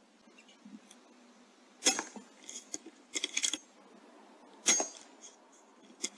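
Two sharp cracks about three seconds apart from an Airmaks Krait L .22 air rifle firing at rats, with clusters of short metallic clicks and clinks between and after them.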